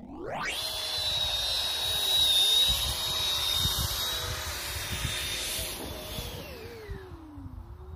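Twin 120 mm electric ducted fans of a 1:9 scale F-35B RC jet spooling up quickly to a loud, steady high whine as it comes in for an automatic landing; near the end the whine fades and drops in pitch.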